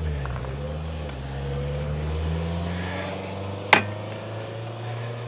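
A motor vehicle's engine hums low and steady, dipping in pitch and then rising again. One sharp click comes about three and a half seconds in.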